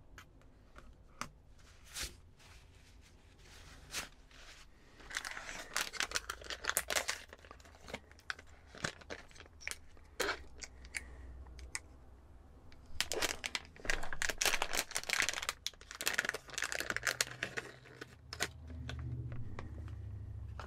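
Plastic packaging crinkling and rustling in irregular bursts, with small clicks and taps as electronics parts and bags are handled on a work mat.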